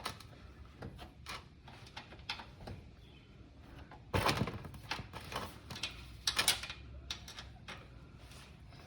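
A wrench being worked on a car's oil drain bolt: scattered metal clicks and knocks, with two louder scraping rustles about four and six seconds in.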